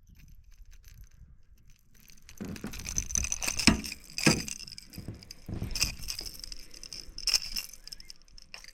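Metal fishing tackle clinking and rattling, pliers against a lure's hooks during unhooking, in a run of sharp clinks that starts about two seconds in and is loudest around the middle.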